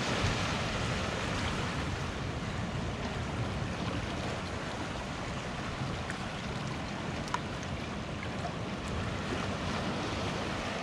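Sea waves washing over a rocky shore, mixed with wind buffeting the microphone, as a steady rushing noise. A single faint click comes about seven seconds in.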